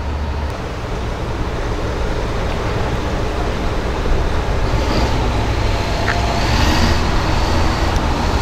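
Steady outdoor background rumble, a dense noise heaviest in the low end, with no speech.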